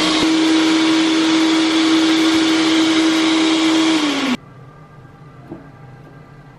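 Countertop jug blender running at full speed through frozen peaches and basil, a steady motor whine over a loud rushing noise. It stops suddenly about four seconds in.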